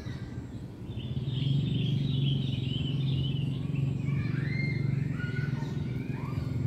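Small birds chirping and twittering, with short gliding notes, over a steady low rumble.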